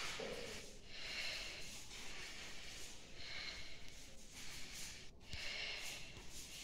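A person breathing, soft hissing breaths at about one every two seconds.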